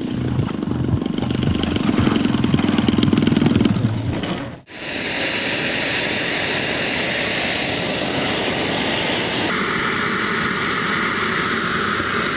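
Model airplane's propeller engine running close by, ending at a sudden cut about four and a half seconds in. Then a model jet's turbine engine runs with a steady high whine whose pitch rises slightly, shifting to a new note about two-thirds of the way through.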